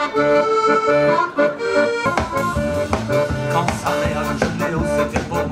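Accordion playing a lively tune of held chords and melody notes, with a drum kit coming in with a steady beat about two seconds in.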